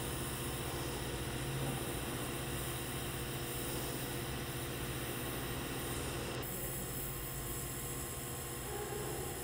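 TIG welding arc on thin stainless steel, a steady hiss and buzz over a low hum as the bead is run. The high part of the hiss drops away abruptly about six seconds in.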